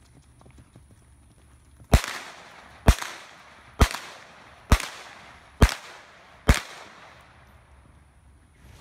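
Six gunshots in a steady series, about one a second, each trailing off in a short echo.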